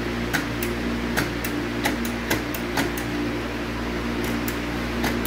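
A string of sharp clicks and taps, irregular, about two or three a second with a short pause in the middle, from hand work on the motorcycle's newly fitted foot controls, over the steady hum of a workshop fan.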